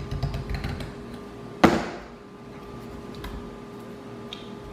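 A new plastic bottle being opened by hand: small clicks and handling at first, then one sharp, loud plastic snap about a second and a half in, followed by a few faint ticks.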